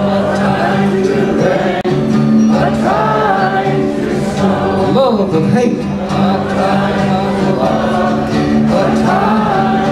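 Group singing with acoustic guitar: a crowd of voices sings along in chorus to a folk singer's guitar, with sustained notes gliding between pitches.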